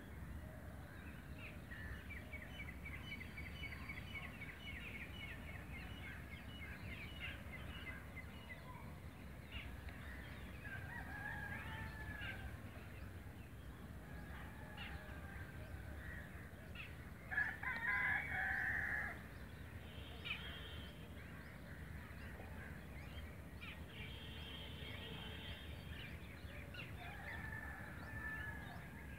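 Birds calling and chirping, with a fast trill early on and a rooster crowing once, about two seconds long, a little past halfway, the loudest sound. A steady low outdoor rumble runs underneath.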